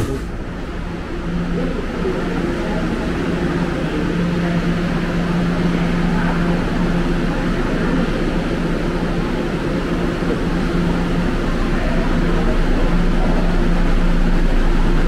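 New York City Subway R211A train standing at the platform with its doors open, giving a steady low hum over a constant rushing noise that grows slightly louder.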